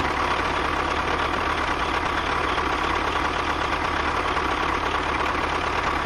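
DIY mini tractor running steadily at an even speed, a constant low rumble with a thin steady whine over it.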